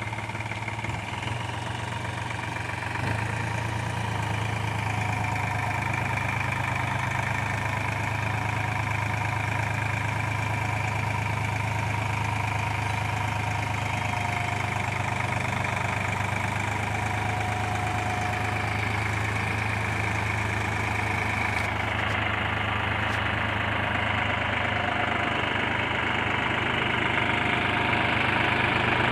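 New Holland 4710 tractor's three-cylinder diesel engine running steadily under load as it pulls a tined cultivator through the soil, with a low even drone and diesel clatter. It gets louder near the end.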